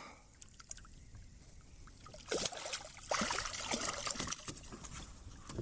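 Water trickling and splashing with scattered knocks and rustles, starting about two seconds in, as a small just-caught redfish is unhooked and handled at a kayak.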